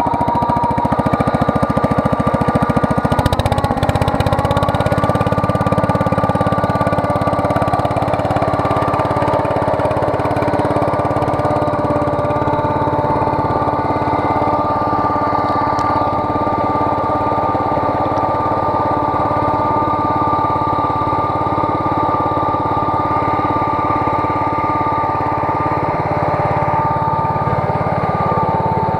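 Kohler K241S single-cylinder engine of a Wheel Horse 953 garden tractor running steadily at an even speed, with a brief knock about three seconds in.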